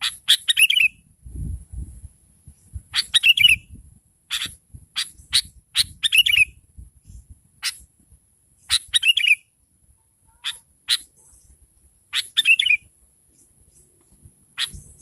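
Sooty-headed bulbul calling: about five short, bright chattering phrases a few seconds apart, with single sharp call notes in between.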